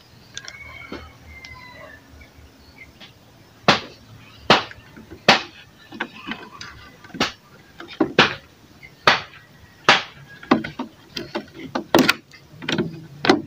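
Pliers cutting and working at the cap and handle of a large plastic bottle: a run of about a dozen sharp clicks and snaps, roughly one a second, starting about four seconds in.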